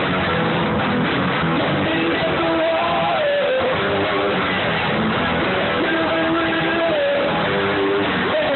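Live rock band playing: electric guitar and drums, with a male singer singing into a microphone.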